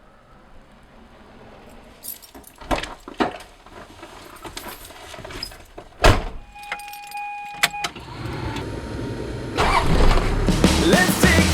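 Car sounds: a few clicks and a loud knock like a door shutting, a short electronic beep, then an engine running with a low steady rumble that grows louder. Music fades in near the end.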